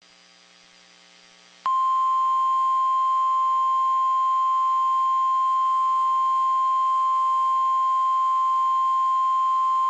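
NOAA Weather Radio 1050 Hz warning alarm tone: one loud, steady single-pitched tone that starts abruptly just under two seconds in, after a faint hum. It signals that a warning message is about to be broadcast.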